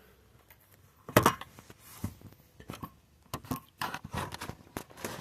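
Handling noise of a phone being moved around and tried in different spots: irregular taps, knocks and scrapes, with the loudest knock about a second in.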